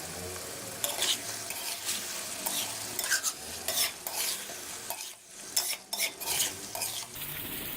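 Chicken and cumin seeds frying in hot oil and butter in a karahi, with a steady sizzle, while a spoon stirs and scrapes against the pan in irregular strokes.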